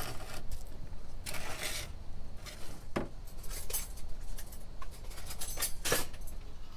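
A ceramic dinner plate being turned by hand on a countertop, with a few short scrapes and clinks, over a low steady hum.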